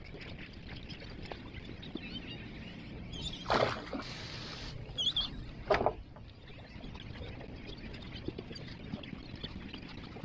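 Seabirds calling now and then over water lapping against a small boat's hull, with two short louder noises about three and a half and six seconds in.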